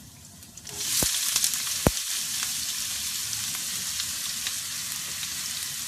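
Chopped onions dropped into hot olive oil in a frying pan, bursting into a loud, steady sizzle under a second in: the oil is now hot enough to fry them. Two sharp knocks come early in the sizzle as the onions are stirred with a spatula.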